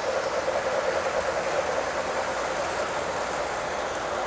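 Model Challenger steam locomotive and its freight cars rolling past on the layout track: a steady rumble of wheels on rails, with a whine that is strongest during the first second and a half as the locomotive passes, then fades as the cars go by.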